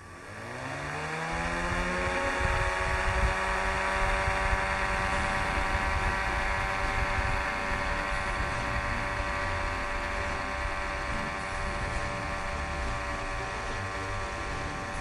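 A small motor spins up over about the first two seconds, rising in pitch, then runs steadily with a whine.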